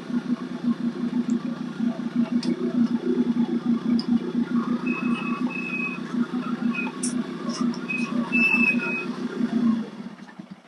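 Yamaha RX 135 two-stroke single-cylinder motorcycle engine running with a fast, even putter as the bike rides up and comes to a stop. The engine cuts off near the end.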